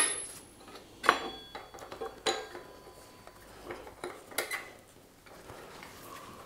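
Light metallic clinks and taps as a brake pad, worn down to the metal, is worked out of a Yamaha Aerox scooter's rear disc-brake caliper. A few sharper clicks come about one, two and four and a half seconds in.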